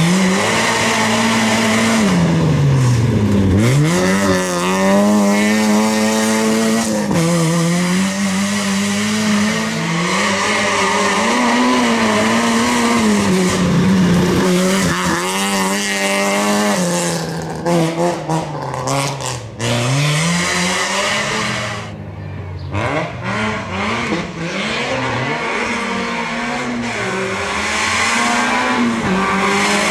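Citroën Saxo VTS rally car at full stage pace: the engine revs hard, its pitch climbing and falling again and again through gear changes and lifts for corners. The tyres scrabble and skid on the loose gravel.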